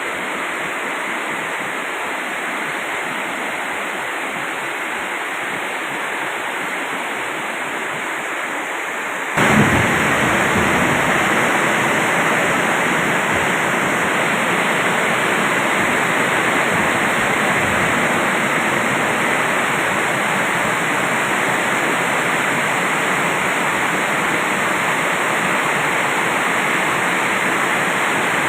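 Heavy rain pouring down steadily without wind. About nine seconds in it turns suddenly louder and stays that way.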